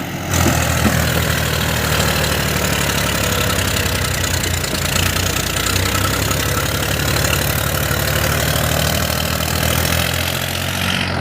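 Heavy diesel machinery engine running at a steady speed, a low, even drone with no change in pitch.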